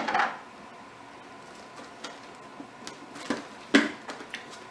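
Home-made cardboard vending machine being worked by hand: a knock as its knob is turned, a few faint clicks, then two sharper knocks about three and a half seconds in at the dispensing flap.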